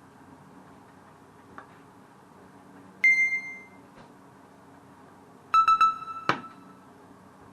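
Two electronic beep-like tones over a low steady hum. A single higher tone comes about three seconds in. A lower, fluttering tone follows about two and a half seconds later and ends with a sharp click.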